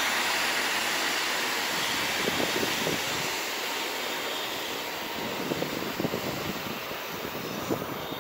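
Mercedes-Benz Arocs 3645 tridem tank truck driving away on a gravel road while spraying water from its rear spray bar: a steady rushing noise that slowly fades as it pulls away, with a few short crackles of gravel.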